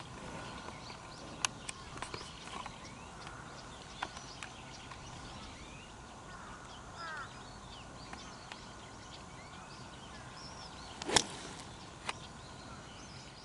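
A golf iron (an 8-iron) strikes a ball once, a single sharp crack about eleven seconds in. Under it is quiet open-air ambience with scattered bird chirps.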